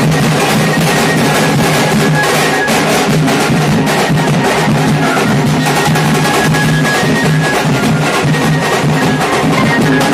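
Procession band playing loud, dense drumming on large dhol barrel drums, the beats coming thick and fast, with a few held notes of a tune over them.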